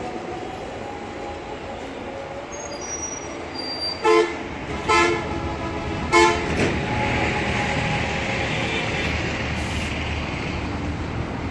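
Scania coach idling with a steady low rumble, its horn sounding three short blasts about a second apart, followed by a few seconds of hiss.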